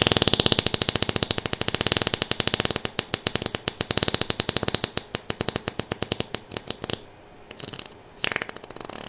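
Long fluttering fart: a fast rattle of pulses that slowly spaces out and fades over about seven seconds, then two short puffs near the end.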